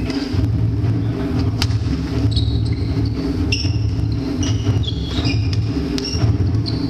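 Badminton rally: two sharp racket strikes on the shuttlecock and short high-pitched squeaks of shoes on the wooden court floor, mostly through the middle, over a steady low rumble.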